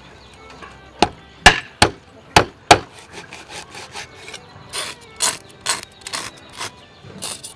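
A wide-bladed kitchen knife scraping the scales off a whole fish on a wooden chopping block. Five loud, sharp scraping strokes come in the first few seconds, followed by a run of softer, quicker strokes.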